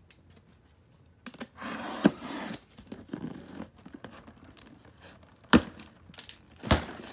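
Scissors slitting the packing tape on a cardboard shipping case, with tape tearing and cardboard scraping, then two sharp knocks near the end as the top flap is pulled up.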